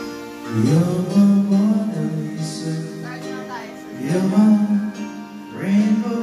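Music with a voice singing long held notes, each phrase sliding up into its note; phrases begin about half a second in, about four seconds in, and again near the end.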